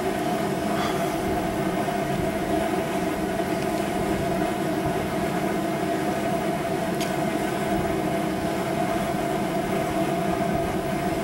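Steady mechanical hum holding several constant tones over a low rumble, with one faint click about seven seconds in.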